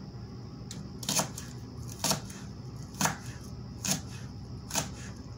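Small paring knife chopping spring onions on a plastic cutting board: a sharp tap of the blade on the board about once a second.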